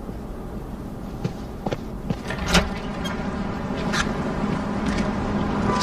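Street traffic ambience: a steady low rumble of vehicles with a hum that grows toward the end, and a few sharp clicks.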